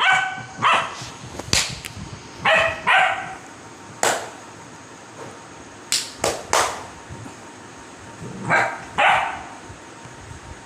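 A puppy giving short, high-pitched yips in three pairs, with a few sharp clicks or knocks in between.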